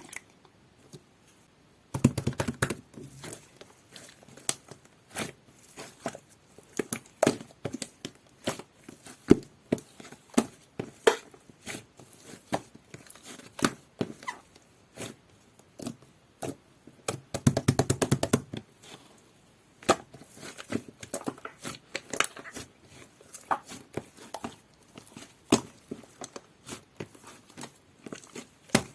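Jelly-textured slime being squeezed, stretched and poked by hand, giving irregular sticky pops and crackles, with two flurries of rapid squelching clicks, one about two seconds in and one a little past the middle.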